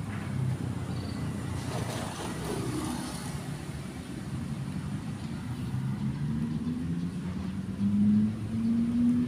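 A motor vehicle's engine running with a steady low hum, getting louder and rising slightly in pitch about eight seconds in.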